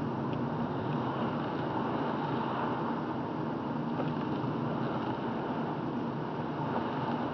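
Steady road noise inside a car's cabin while driving: tyres on wet pavement with a low engine hum.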